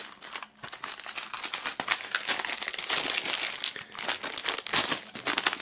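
Plastic shrink-wrap film crinkling in quick, dense crackles as it is peeled off a CD jewel case, with a brief lull about half a second in.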